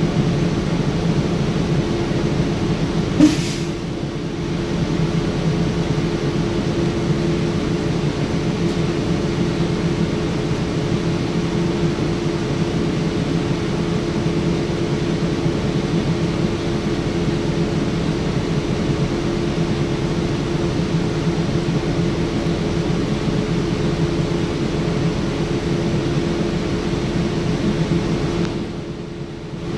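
Cabin ride noise of a 2009 NABI 40LFW hybrid transit bus under way: a steady drone of the drivetrain with a constant low hum and road noise. A single short sharp click or knock sounds about three seconds in, and near the end the noise briefly drops.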